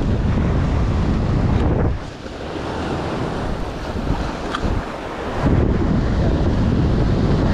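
Wind buffeting the microphone over surf washing on the shore. The wind drops for a few seconds in the middle and picks up again about five and a half seconds in.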